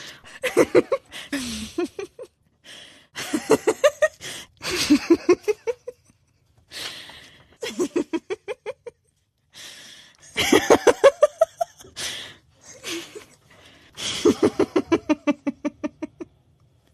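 A person laughing hard in several bouts of quick, rapid-fire "ha" pulses that fall in pitch, with breathy intakes between them.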